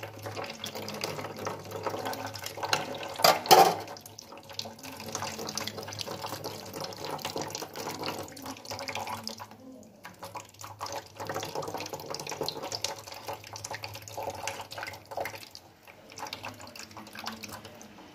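Kitchen tap running into a plastic mesh strainer over a steel sink, splashing through dragon fruit pulp as it is rubbed to wash out the seeds. A brief louder knock comes about three and a half seconds in.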